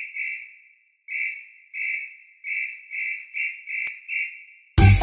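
A whistle is blown in short, shrill blasts that come faster toward the end, like a sports coach's whistle. Near the end a band kicks in with bass and drums.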